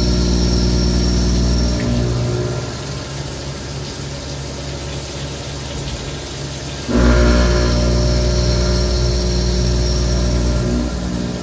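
Haas Minimill HE CNC vertical mill machining with flood coolant: a loud, steady humming tone from the cut for about the first two seconds, quieter running for several seconds, then the loud hum again from about seven seconds in until near the end.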